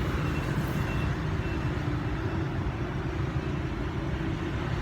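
Steady low rumble of motor-vehicle noise, with a faint steady hum above it.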